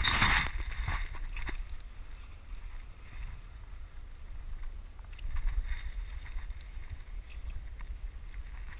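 Wind buffeting the microphone of a body-worn camera, a steady low rumble, with a louder burst of rustling noise in the first half-second.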